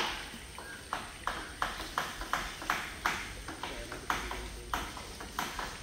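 Elephant tearing a palm frond apart: a run of sharp cracks and snaps, about three a second, as the leaf is ripped and broken.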